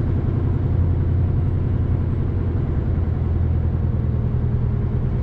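A lorry's diesel engine running steadily, a constant low hum heard from inside the cab.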